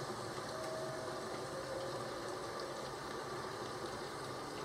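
Steady rain falling, an even unbroken patter with no thunder.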